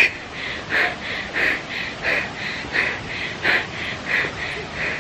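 A woman panting hard close to the microphone, quick heavy breaths about three a second, out of breath from climbing steep stairs.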